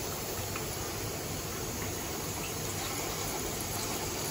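Chicken kebab pieces deep-frying in a kadai of hot oil: a steady sizzle.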